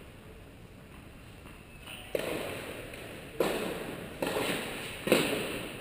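A tennis ball bounced on an indoor hard court four times, about a second apart and starting about two seconds in, as the player at the baseline readies his serve. Each bounce echoes in the large hall.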